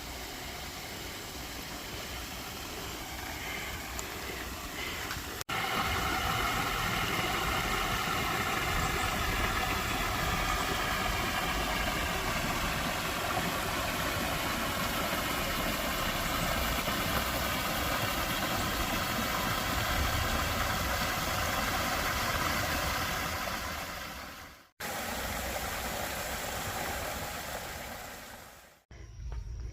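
Steady rushing water, loud and even, broken by abrupt cuts a few seconds in and twice near the end.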